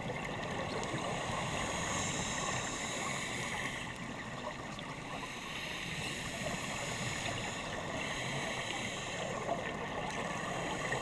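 Steady underwater noise picked up by a camera in a dive housing: a constant wash whose hiss swells and fades every few seconds, with a few faint clicks.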